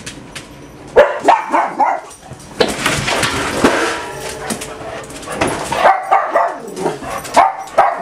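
Dogs barking and whining in short bursts, with a cluster of calls about a second in and another in the last few seconds.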